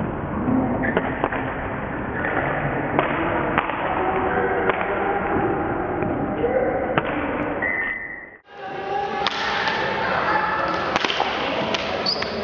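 Indoor hockey game in a sports hall: sticks and ball knocking sharply on the hard floor, players' shouts ringing in the hall, and a couple of short whistle blasts. The sound drops out briefly about two-thirds of the way through and then comes back.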